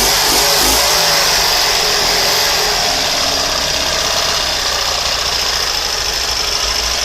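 Freshly rebuilt 1967 Fiat 500 air-cooled two-cylinder engine running steadily on its first start.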